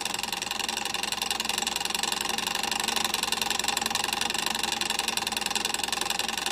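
Electronic intro sound effect: a steady, dense synthesized buzz with a fast flutter, holding one level throughout.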